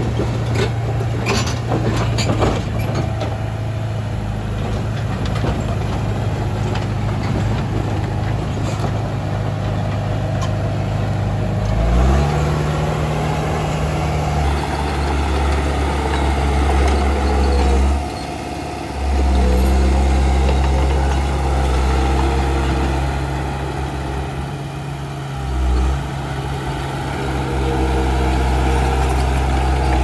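Komatsu D31 bulldozer's diesel engine running under work, with a few sharp clanks in the first few seconds. About twelve seconds in it revs up to a higher steady pitch, then briefly eases off twice.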